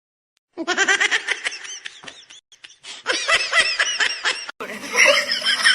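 A person laughing hard in quick high-pitched bursts, in two runs. About four and a half seconds in the sound cuts to more laughing over a steady low hum.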